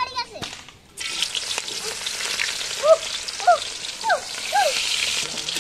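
Sliced onions dropped into hot oil in a wok over a wood fire: a sudden frying sizzle starts about a second in and holds steady.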